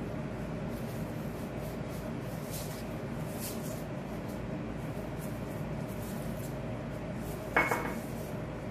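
A clear cup clinks sharply once against the countertop with a short ring, about three-quarters of the way through, as it is set down after cutting dough rounds. Under it run a steady low background hum and faint soft clicks of gloved hands handling dough.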